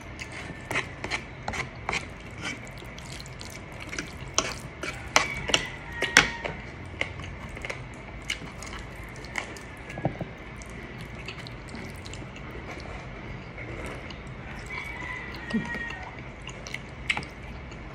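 Close-up eating sounds: forks clicking and scraping against the plate as spaghetti is twirled, with wet chewing and slurping of noodles. The clicks come thick and fast for the first several seconds, then thin out.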